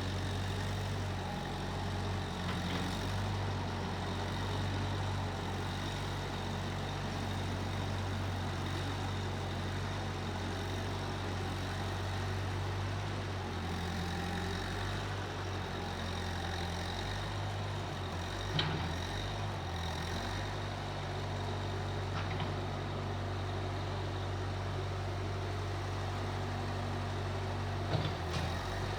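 Case 1530 Uni-Loader skid steer engine running at a steady, even speed, with a couple of short knocks, once past the middle and once near the end.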